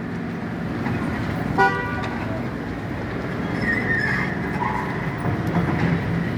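A single short vehicle horn toot about a second and a half in, over a steady low rumble of street traffic.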